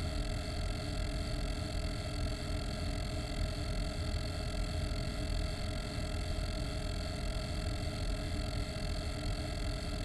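Cooling fan of a Shure PA411 rack unit running steadily, close-miked about a centimetre from its grille: an even rush with a low rumble and several faint steady tones, unchanging throughout.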